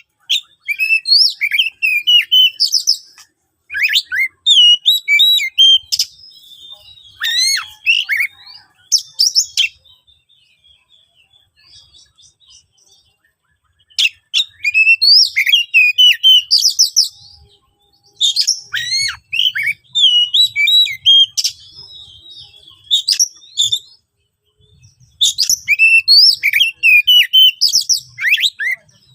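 Oriental magpie-robin (kacer) singing a loud, harsh song of rapid, varied whistles and chattering phrases in bursts of several seconds, with two short pauses. It is the rough, aggressive fighting-style song kacer keepers use to provoke rival males.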